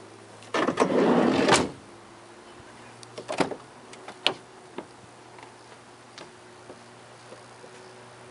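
Sliding side door of a Citroen Berlingo van rolled shut along its runner for about a second, ending in a bang, followed by a few lighter clicks and knocks from the door hardware.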